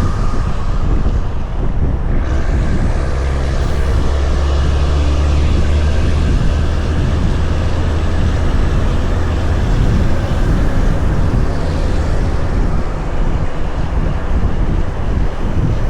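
Heavy haul truck's diesel engine running under load while pulling an excavator, with road and wind noise. Its low drone swells a few seconds in, then eases back.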